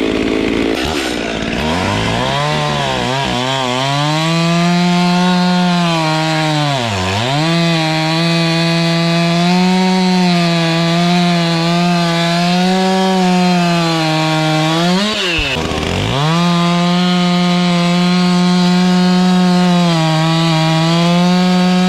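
Stihl two-stroke chainsaw running at high revs while cutting small logs. Its pitch dips sharply and climbs back three times: near the start, about seven seconds in and about fifteen seconds in.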